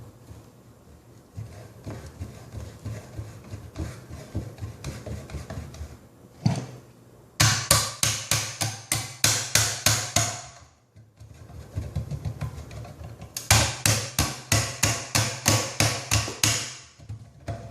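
Rapid sharp strikes on a copper pipe fitting, in two loud runs of about five blows a second, as the crimped, unsoldered fitting is knocked loose from the pipe. Lighter ticking and a single knock come first.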